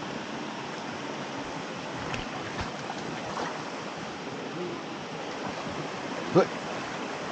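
Steady rushing of a small waterfall on a stream. A short, louder sound cuts in about six seconds in.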